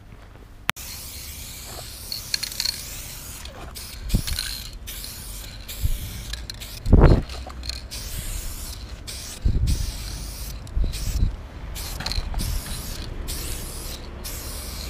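Aerosol spray paint can hissing in short and longer bursts that start and stop many times as letters are sprayed on a wall, with a few low thumps, the loudest about seven seconds in.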